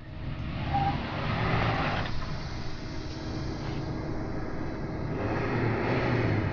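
Off-road 4x4 driving along a dirt trail: engine and road noise run steadily, swelling a little twice.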